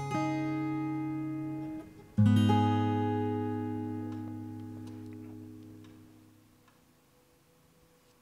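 Acoustic guitar background music: a chord rings and fades, then a new chord is struck about two seconds in and rings out, dying away over the next few seconds.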